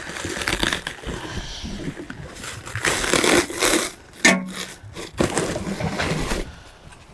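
Plastic packaging crinkling and rustling in uneven bursts as packed parts are handled inside a cardboard box.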